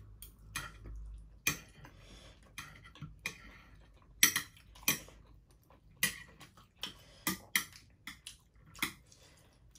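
Metal chopsticks and forks clinking and tapping against ceramic plates while dumplings are picked up. The clinks are short and irregular, with quiet gaps between them; the loudest comes about four seconds in.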